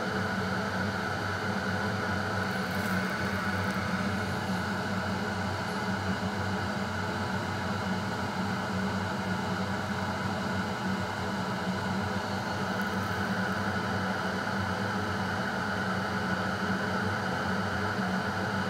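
Steady machine hum with an even hiss, holding one level with no changes.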